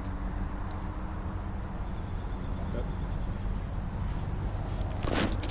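Steady high buzzing of insects over a low, even rumble, with a pulsing buzz for a second or two in the middle. Near the end there is one short, sharp noisy burst.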